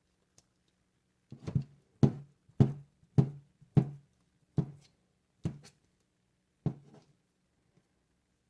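Knife chopping through crab meat and striking the cutting board, about eight sharp knocks, roughly two a second at first and then more spaced out.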